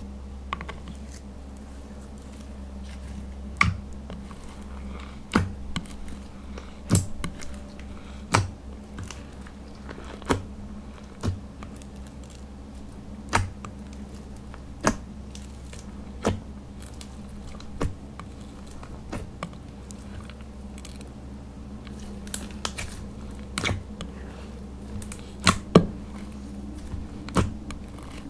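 Clear glitter slime being kneaded and stretched with crushed makeup powder worked in, giving sharp, irregular pops and clicks every second or two, over a steady low hum.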